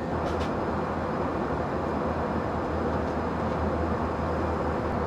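Steady cabin noise of an Airbus A321 in flight: an even rush of air over a low engine drone. A brief faint click comes about a third of a second in.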